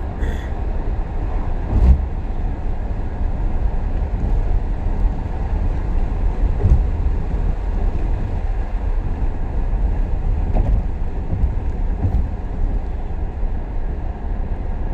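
Steady rumble of a moving vehicle heard from inside, mostly low road and engine noise, with a few brief knocks from bumps.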